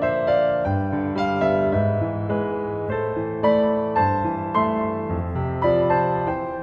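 Slow, gentle solo piano music: single notes and chords struck every half second or so and left to ring.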